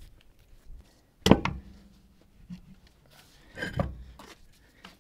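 A heavy steel dually rear wheel is pulled off the hub studs and handled. About a second in there is one sharp clunk that rings briefly; near the end come a few more knocks and scuffs as the tyre is tipped and rolled away.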